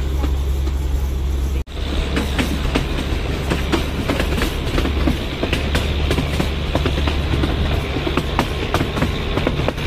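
Narrow gauge passenger train running slowly, heard from a coach window: a steady rumble with frequent irregular clicks and knocks of the wheels on the track. A momentary gap about a second and a half in.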